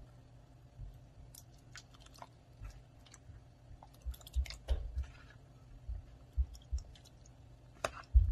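A plastic spoon stirring a creamy fruit salad in a plastic bowl: quiet, irregular wet squelches with light clicks and knocks of the spoon against the bowl, busiest about halfway through and again near the end.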